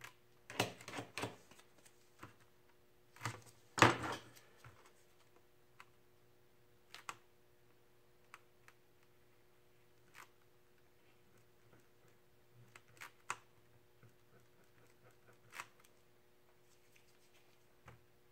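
Short scratchy strokes and taps as a small scraping tool held in a gloved hand is dragged and dabbed across wet spray paint on a board, in two clusters in the first four seconds (the loudest near four seconds in) and then sparse single ticks, over a faint steady hum.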